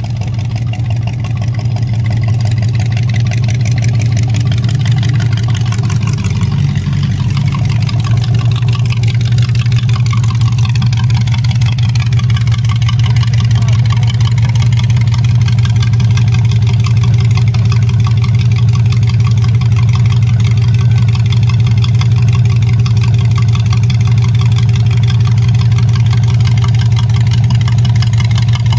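Rat rod pickup's exposed engine idling close by, loud and steady.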